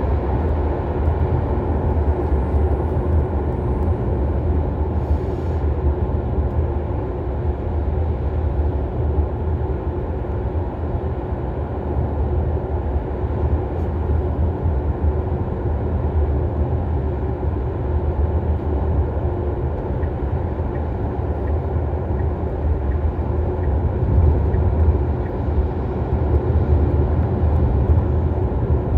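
Tesla Model Y heard from inside the cabin at highway speed: steady road and tyre noise with a strong low rumble. Over the first few seconds a faint high-pitched whine sits above it and fades out. The owner puts this whine down to the rear electric motor under acceleration.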